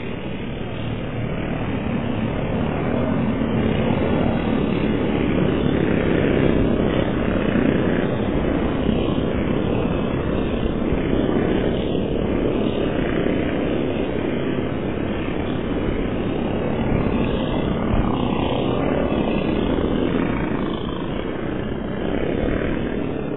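A pack of small off-road race karts running together on a dirt track: many small engines buzzing at once, getting louder over the first few seconds and then holding steady.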